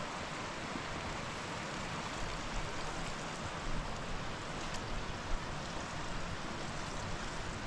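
Steady rushing outdoor noise with an uneven low rumble, and a few faint clicks and knocks about four to five seconds in.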